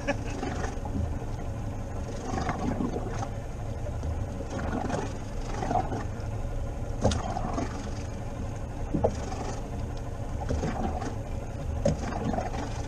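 Steady low rumble aboard a small rigid inflatable boat at sea, with a few sharp clicks and knocks, the clearest about halfway through and near the end.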